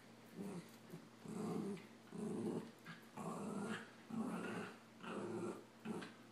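Puppies growling during play-fighting, in short rough bursts about once a second.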